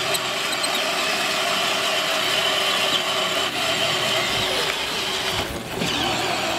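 Battery-powered Barbie Jeep ride-on toy's electric motors and gearboxes whirring steadily as it drives over grass, with a brief dip about five and a half seconds in.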